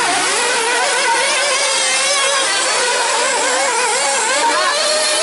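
Several 1/8-scale nitro RC buggies racing, their small two-stroke glow-fuel engines whining over one another and rising and falling in pitch as they speed up and slow for the turns.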